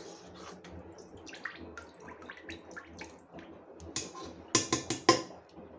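Metal ladle scooping fermented grape wine in a plastic bucket, the liquid sloshing and dripping, with a few sharp knocks about four to five seconds in.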